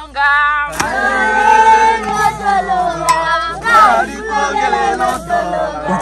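A group of men and women singing together in several overlapping voices, holding long notes: a work song sung while hoeing the field.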